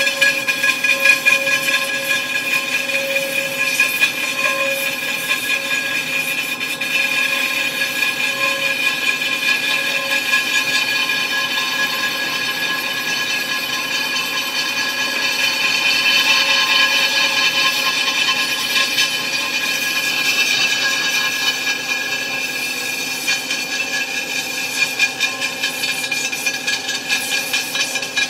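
A rim repair lathe turns an aluminium alloy wheel while its tool takes a light cut off the bead seat. The rim rings with a steady whine of several high tones over the rough noise of the cut.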